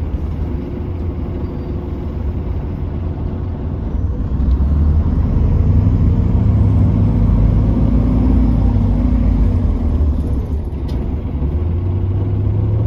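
Optare Versa single-deck bus heard from inside the passenger cabin: a steady engine and road rumble that grows louder and rises in pitch as the bus accelerates about four seconds in, eases off near ten seconds, then picks up again near the end.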